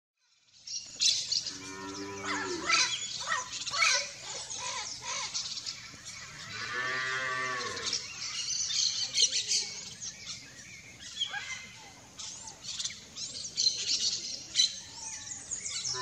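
Many short high bird chirps and calls throughout, with a cow mooing twice in the background, about two seconds in and again around seven seconds in.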